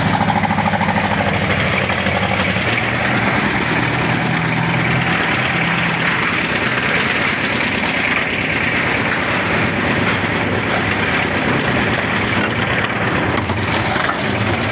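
Engine-driven concrete mixer running steadily, its engine humming under a dense rattling hiss of cement, sand and aggregate tumbling in the rotating iron drum. The engine tone is plainest in the first few seconds.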